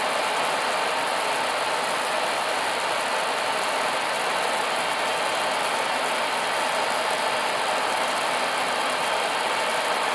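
Steady cockpit noise of an Airbus A320 on short final approach: an even rush of airflow and engine noise with a faint steady hum, holding the same level throughout.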